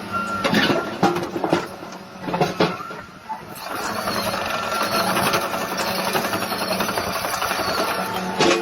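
Excavator diesel engine running steadily, with several sharp knocks and clatters of rock in the first few seconds and another near the end, as the machine spreads rock.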